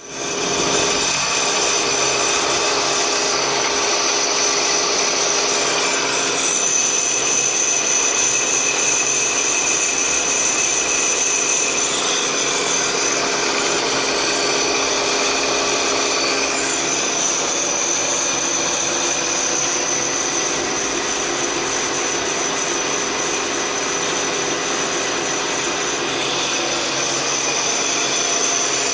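Brake drum turning on a brake lathe while a cutting bit skims its inner braking surface: a steady cutting noise with a high, even whine.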